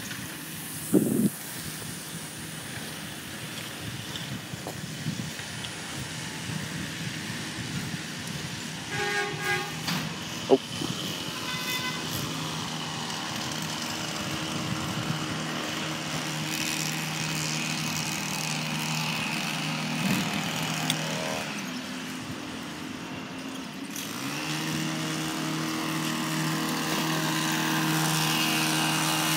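A motor vehicle's engine running steadily with a low hum that grows louder over the last few seconds. There is a brief pitched beep about nine seconds in and a couple of sharp knocks.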